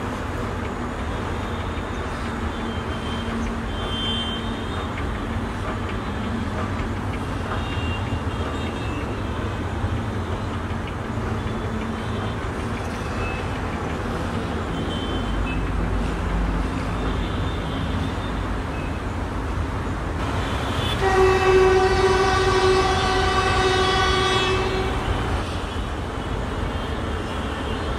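Horn of a Bangladesh Railway DEMU commuter train, sounded in one long steady blast of about four seconds about three-quarters of the way through, over a steady low rumble.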